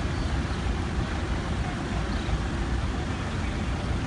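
Passenger van and minibus driving slowly across a paved lot: a steady low rumble of engines and tyres.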